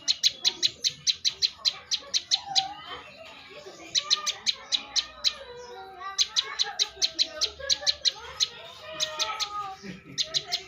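Prenjak lumut singing: fast runs of sharp, high chirps, about six a second, in bursts of a few seconds with short breaks between.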